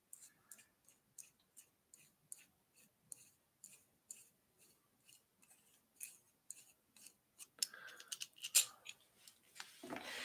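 Light metal clicks and clinks from a small wrench being turned over in the hands, scattered at first and coming more often about three-quarters of the way through.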